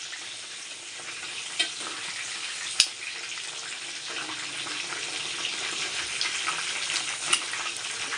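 Food frying in hot oil in a pan, with a steady sizzle and a few sharp clicks.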